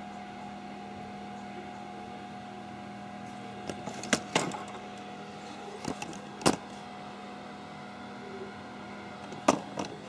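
A steady electrical hum under a handful of sharp clicks and knocks from handling on a workbench, as test leads and gear are moved about. The knocks come in small groups, about four seconds in, around six seconds in, and near the end.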